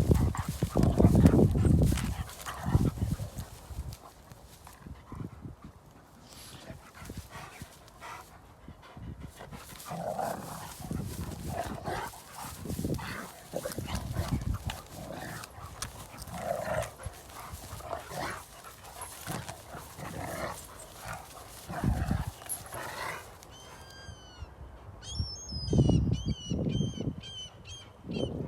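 Dogs (a Rottweiler and a German Shepherd) barking and vocalising in bursts, loudest in the first few seconds. Near the end a seagull gives a quick run of high, repeated cries.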